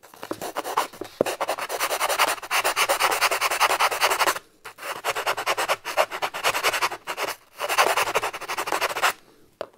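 Small hand file rasping back and forth in a hole in extruded polystyrene foam (Styrodur), enlarging the hole. The quick scratchy strokes come in three bouts with short pauses between.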